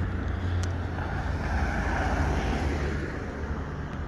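A car driving past, its road and engine noise swelling to a peak about two seconds in and then fading, over a steady low rumble.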